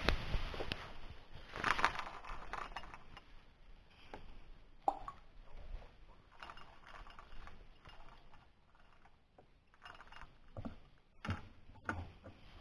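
Faint handling noise: scattered small clicks, taps and rustles, with a longer rustle about two seconds in and a few sharper taps near the end.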